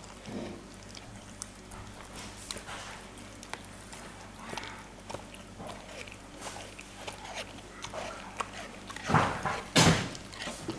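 A dog licking and chewing a piece of raw meat, with many small wet clicks and smacks. Near the end come two louder, brief noisy sounds.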